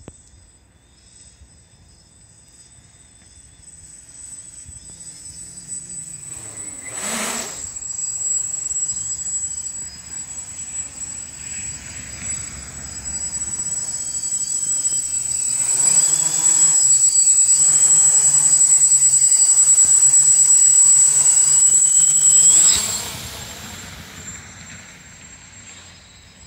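Multirotor quadcopter with Sunnysky 800kv brushless motors and 11x4.5 carbon props in flight, its buzzing hum growing louder over several seconds, holding steady at its loudest, then dropping away suddenly near the end. A thin high whine runs under it.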